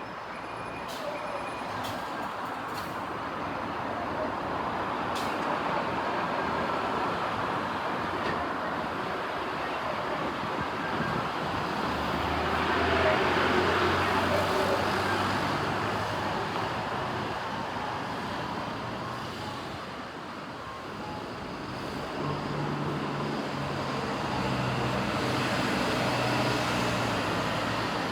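Road traffic passing below: steady tyre and engine noise, with heavier vehicle engines swelling past about halfway through and again near the end.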